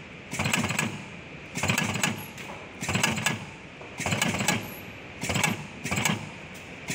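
Automatic battery spot welder firing welds on the connecting strips of a cylindrical lithium-cell pack: a short burst of sharp snapping clicks about every 1.2 s, six times, as the welding head steps from cell to cell. A steady machine hum runs underneath.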